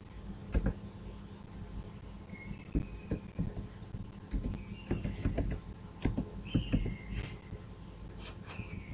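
Computer keyboard keys tapped one at a time, about a dozen irregular clicks spread over several seconds, over a low steady hum.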